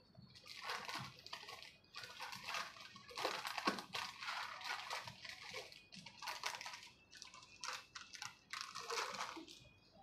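Plastic snack packets crinkling and rustling in irregular bursts as they are taken from the shelf and handled.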